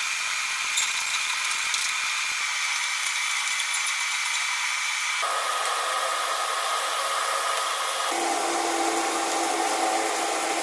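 Food frying in oil in a stainless steel wok: a steady sizzling hiss. It changes abruptly twice, about five and eight seconds in.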